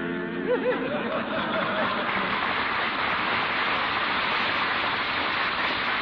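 Studio audience applauding steadily, right as a group's sung last note ends, with a few voices calling out in the first second.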